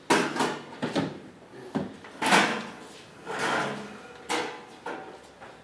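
A series of knocks and bumps with some scraping, about six sudden strikes over a few seconds, each dying away quickly; the loudest comes about two seconds in.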